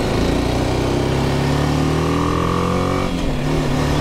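BMW G310 GS single-cylinder motorcycle engine pulling hard, its pitch rising steadily, with a brief dip about three seconds in as a gear changes, then pulling again.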